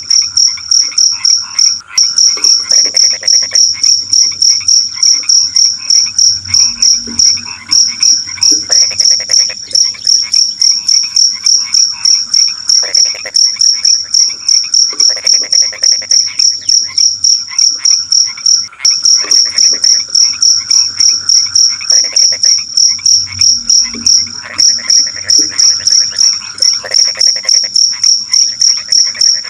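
A cricket chirping in a fast, even rhythm of high pulses, several a second, with frogs croaking in irregular lower calls underneath.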